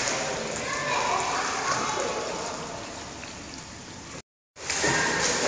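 Swimming-pool water churning and splashing as a child surfaces and swims after jumping in, the noise slowly fading. The sound cuts out briefly a little after four seconds, then splashing from swimming strokes resumes.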